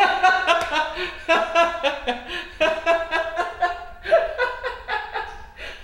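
A man laughing hard in short repeated bursts.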